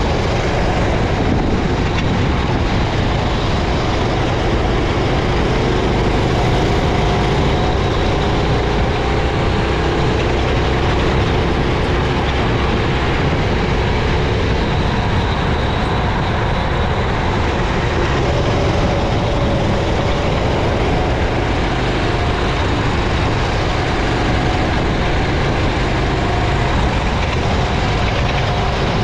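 Racing kart engine heard onboard at race speed, its pitch slowly rising and falling with the throttle, under a steady dense rush of noise.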